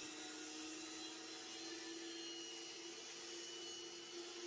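Sliding miter saw motor running at speed with a steady whine, the blade spinning as the saw head is lowered into a thin partial-depth slice.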